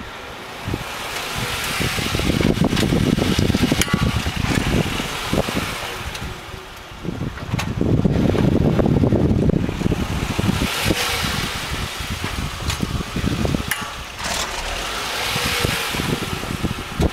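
2004 Acura TL with a 3.2-litre V6 and 6-speed manual, driving at low revs, its engine and road noise swelling and easing several times as it pulls through the gears. Several sharp clicks sound through it. This is the shifting click the owner cannot explain, wondering about the axle nut or the brakes.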